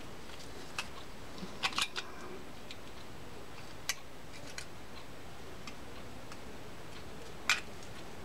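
Scattered light clicks and taps of metal reel parts being handled as the side plate of a Garcia Mitchell 624 fishing reel is fitted. A quick cluster of clicks comes about two seconds in, and the sharpest click near the end.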